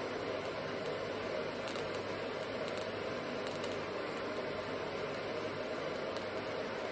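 TIG welding arc burning steadily, a continuous even hiss from a Jess ProTIG 220 AC/DC welder.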